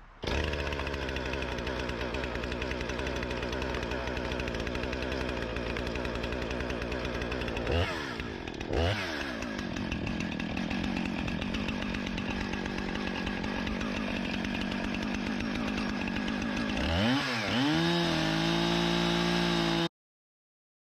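Gas chainsaw running at full throttle, cutting a log lengthwise in a clamp-on chainsaw mill. Its engine note dips and recovers twice about eight and nine seconds in, wavers again near the end and settles, then stops abruptly.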